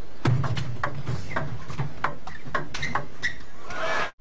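Table tennis ball clicking off the rackets and the table during a rally: a dozen or so sharp clicks at an uneven pace, over the low murmur of the hall.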